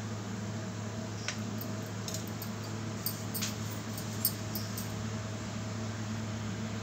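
Crisp baked wheat-flour biscuit being snapped and broken apart by hand: a scatter of faint crackles and clicks over a few seconds, over a steady low hum.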